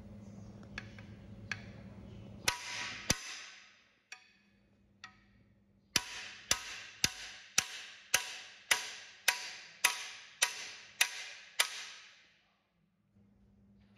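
Hammer blows on the driving bar of a camshaft bearing installer, driving a new cam bearing into the bore of a cast-iron F4-134 Hurricane engine block. A few light taps, two sharp metallic strikes, then a run of eleven evenly spaced blows, about two a second, each ringing briefly.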